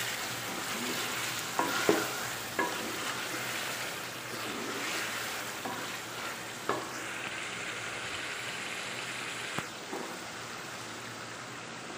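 Chicken and potato pieces sizzling as they fry in oil and spice masala in an aluminium pot while being stirred with a wooden spoon, with a few sharp knocks of the spoon against the pot. This is the bhuna stage, frying the meat and potatoes in the masala before water is added.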